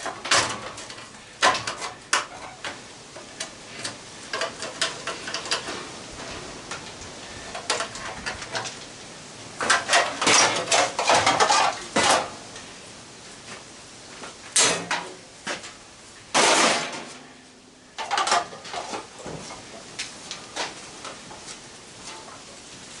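Sheet-metal housing of an old fan being pried apart: irregular metallic clinks, taps and clanks as bent tabs are straightened and a side panel is worked off. A dense clatter comes about ten seconds in, and a short scraping rattle about six seconds later.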